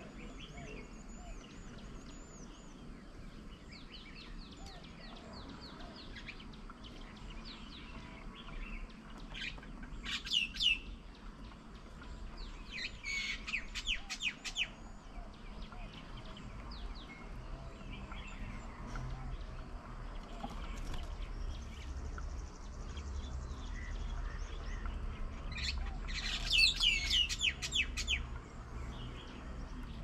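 Wild birds chirping: three short bursts of rapid, chattering high notes, about ten seconds in, a few seconds later, and loudest near the end, over fainter scattered chirps. A low rumble rises under the second half.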